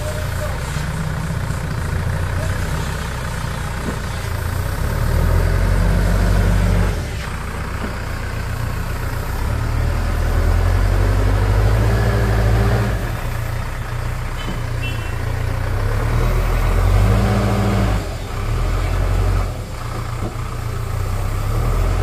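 Bull backhoe loader's diesel engine running, with the revs rising in several surges as it works the loader's hydraulics to lower and set a concrete pipe, plus a few brief knocks.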